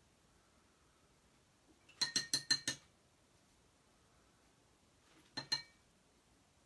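Light ringing clinks of small hard objects: a quick run of about six, about two seconds in, then two more a few seconds later.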